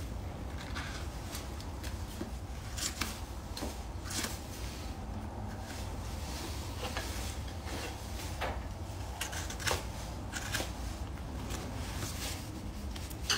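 Hoof knife paring the sole of an overgrown horse hoof: short, irregular scraping cuts about once a second, over a steady low hum.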